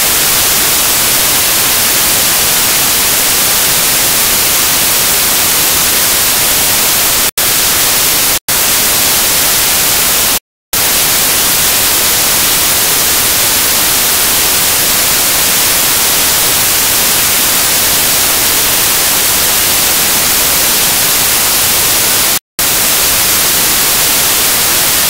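Loud, steady white-noise static, a hiss brightest in the treble, cut by brief dropouts to silence about 7, 8½, 10½ and 22½ seconds in. It is the sign of a faulty audio track, not a sound of the craft work.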